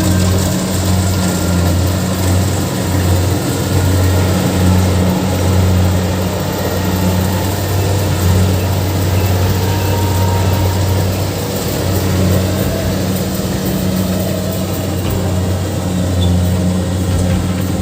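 Diesel engine of a rice combine harvester running steadily: a deep, even hum with dense mechanical noise over it.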